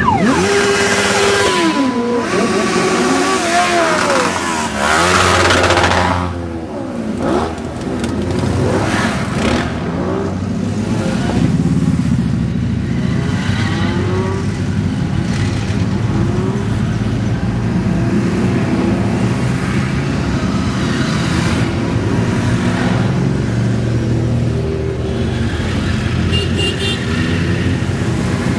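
Many motorcycles riding past one after another in a procession, engines running and revving. Their pitch rises and falls as each bike goes by.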